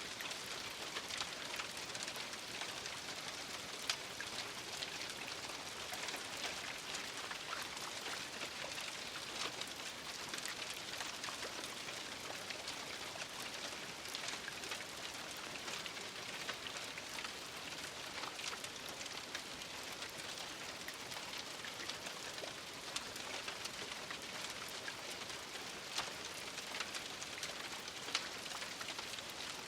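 Rain falling steadily, a dense even hiss with single drops ticking sharply here and there.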